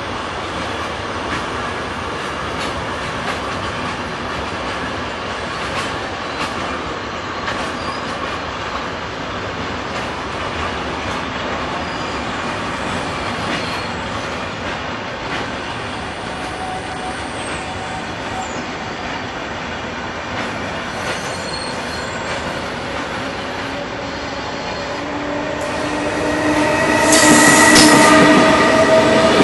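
Freight train wagons rolling past: a steady rumble and clatter of steel wheels on rail. Over the last few seconds it grows louder and a high pitched squeal with several steady tones comes in.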